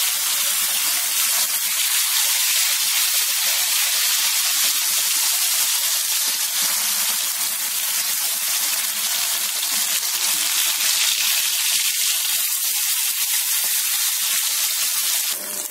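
Fish steaks shallow-frying in hot oil on a dosa griddle, sizzling steadily as they are turned over to fry the second side.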